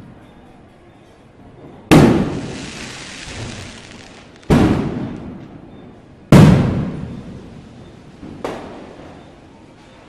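Firecrackers exploding: three loud sharp bangs about two seconds apart and a fainter one near the end, each trailing off in a long echo.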